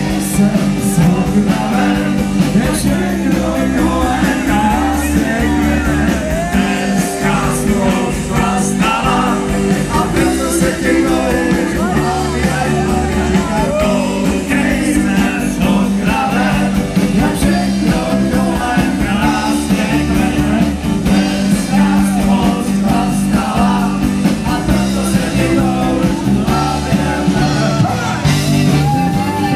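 Live rock band with accordion playing through a PA, with a male lead singer over drum kit, electric guitar and bass.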